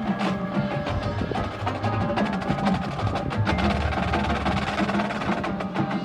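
Marching band playing, with rapid clicking and knocking percussion over sustained pitched tones from winds and front-ensemble mallets.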